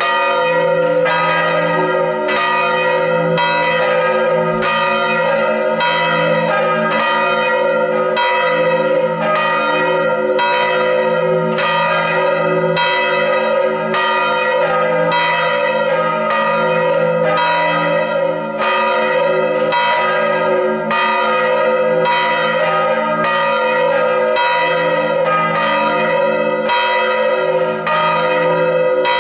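Three swinging church bells ringing together in full peal (volée): bells tuned to D#, A# and B, cast in 1851, 1640 and 1838. Their strokes land about every half second and overlap into a continuous ring. This is the peal before the Sunday service.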